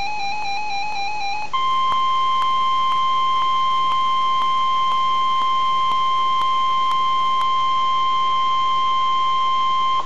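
Weather radio alert: a warbling electronic tone changes about a second and a half in to the steady 1050 Hz NOAA Weather Radio warning alarm tone, with faint ticks about twice a second. The steady tone stops abruptly near the end, the signal that a warning message follows.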